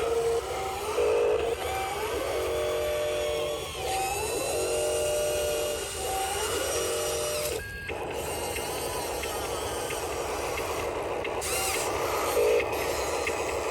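Small electric gear motors of remote-control construction models whining in repeated short runs of a second or two, several rising in pitch as they spin up, then holding a steady tone.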